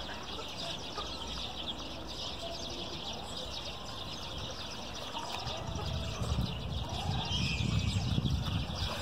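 Birds chirping in the background over a steady outdoor hush. A low rumble swells up about halfway through and stays to the end.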